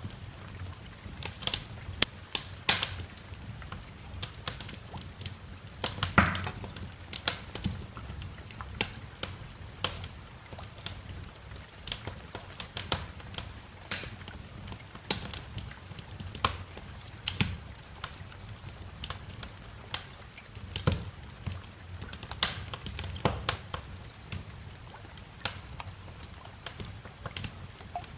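Wood fire in a fireplace crackling, with irregular pops and sharp snaps several times a second over a steady low rumble.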